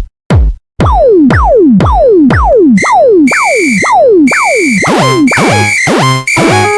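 Electronic music and synth sound effects: a run of quick falling-pitch swoops, about two a second, with steady high synth tones coming in around the middle and a busier stepped run of notes near the end.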